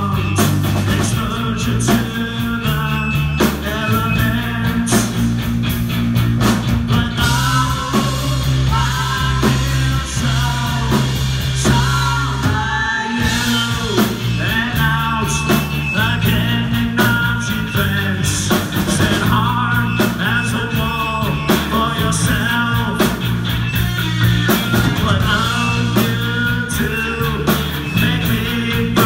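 Live rock band playing loudly: electric guitar, electric bass and drum kit, with a sung vocal. About halfway through, the band drops out for a moment before coming back in.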